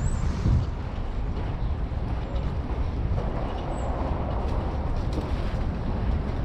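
Steady low rumble of city street noise, with traffic passing. A hiss in the middle range grows from about halfway through.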